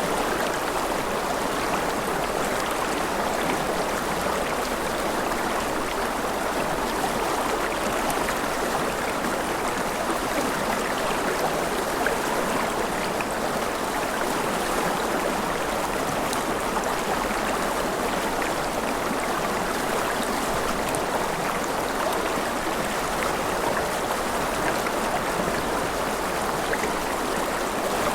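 Mountain river running over rapids: a steady rushing of water with no breaks or changes.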